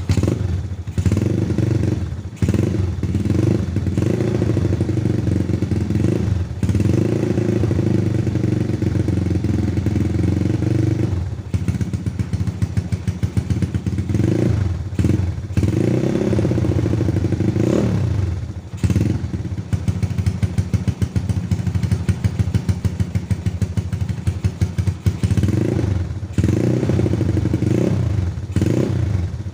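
Yamaha Vega motorcycle's four-stroke single-cylinder engine, just started, running loudly through an aftermarket exhaust on a mix of RON 98 Pertamax Turbo and RON 90 Pertalite petrol. It idles steadily, with several throttle blips that rise and fall in pitch, a cluster of them around the middle and two more near the end.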